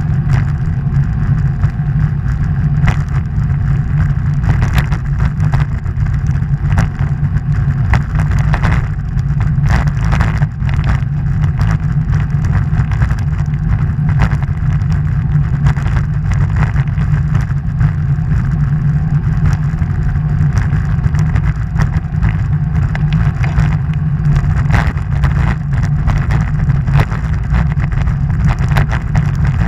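Wind rushing over the microphone of an action camera on a moving bicycle: a loud, steady, deep rumble with frequent short crackles.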